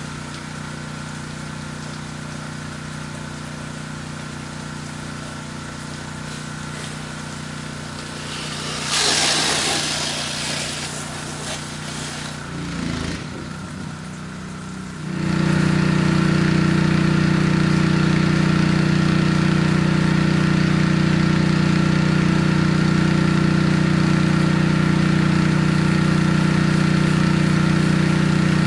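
Gas engine of a pressure washer running steadily at low speed. About nine seconds in a loud hissing rush lasts a couple of seconds, then about fifteen seconds in the engine steps up to a louder, higher steady run.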